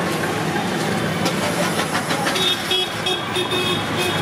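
Steady street traffic noise. About two seconds in, a vehicle horn starts tooting in a quick run of short beeps and keeps it up for almost two seconds.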